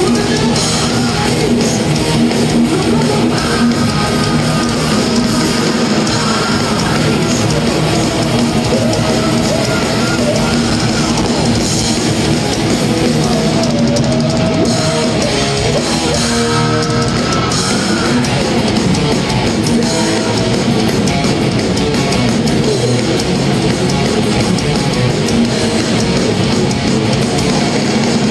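Thrash metal band playing live, heard from the audience: loud distorted electric guitars with bass and drums, going steadily without a break.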